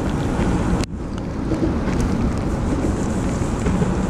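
Wind buffeting the microphone with a steady low rumbling rush, briefly dropping out just under a second in.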